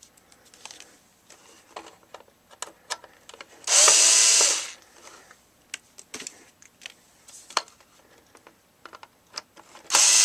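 Power drill-driver backing out the screws that hold an air conditioner's control board. It runs in two short spurts of about a second, one about four seconds in and one at the very end, with small clicks and taps of screws and parts being handled in between.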